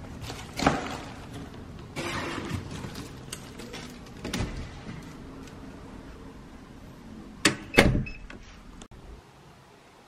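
An insulated foil bag crinkling and rustling as it is handled, then a door's lever handle and latch clacking twice, sharply and loudly, near the end.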